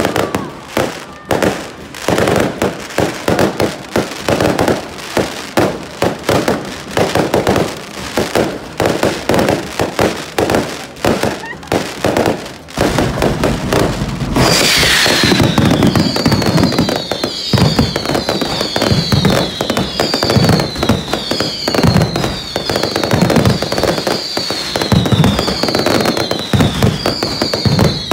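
Daytime festival fireworks: a dense barrage of firecracker bangs and crackling. About halfway through a hiss sweeps in, then a chain of falling whistles repeats about once a second over the continuing bangs.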